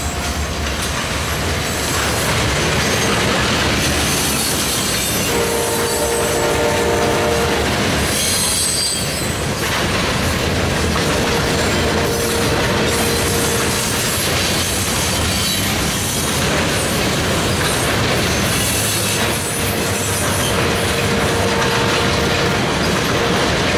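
Freight cars of a CSX mixed freight, covered hoppers and tank cars, rolling steadily past on the rails with a continuous loud rumble. A held whining tone comes in three times: about five, eleven and nineteen seconds in, each lasting two to three seconds.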